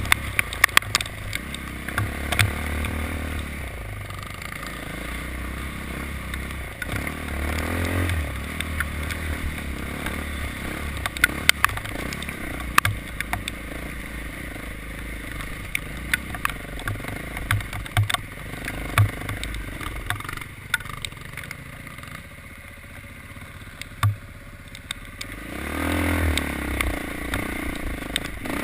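A motor vehicle's engine running under way, its pitch rising several times as it is revved up, with clattering and many scattered sharp clicks and knocks over the top.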